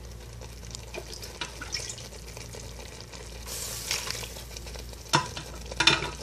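Wooden spoon stirring chunks of boiled beef in a pan of sizzling onions and stock, scraping and tapping the pan, with two sharp knocks near the end.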